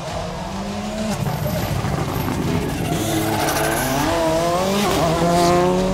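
Volkswagen Polo rally car's engine at full throttle, its pitch climbing hard through the gears, with short drops at the shifts.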